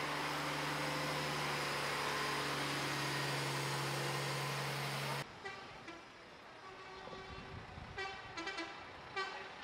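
A large truck passing close at walking pace, its diesel engine running with a steady low hum and a wide hiss, cut off abruptly about five seconds in. After that, quieter street sound with a few brief, louder sounds near the end.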